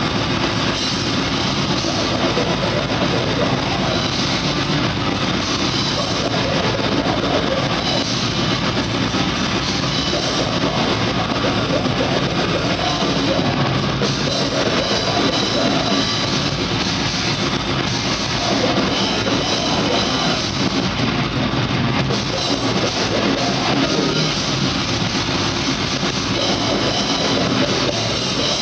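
Grindcore band playing live at full volume: distorted electric guitar, fast pounding drum kit and shouted vocals in one dense, unbroken wall of sound.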